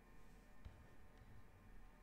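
Near silence: room tone with a faint low hum and two faint clicks.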